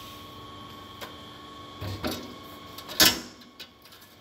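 Autoclave door lock handle being turned, with a few metal clicks and rattles, then one loud clunk about three seconds in as the door is unlatched and opened.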